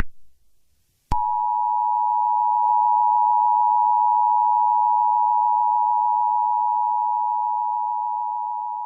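Emergency Alert System two-tone attention signal: two close steady tones sounding together (853 and 960 Hz). It comes in about a second in after a brief silence, holds steady, and fades slightly toward the end.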